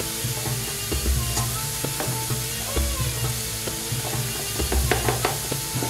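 Thick rogan josh curry sauce sizzling in a small metal frying pan over a gas flame, with a quick run of clicks near the end.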